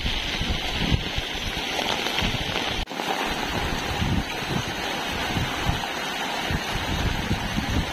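Fast-flowing floodwater rushing, with rain hiss and wind buffeting the microphone in low gusts. The sound drops out for an instant about three seconds in.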